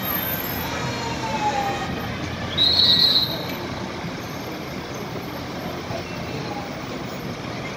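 Street ambience of a busy square: steady traffic noise and crowd murmur. About two and a half seconds in, a short, shrill high tone stands out for under a second.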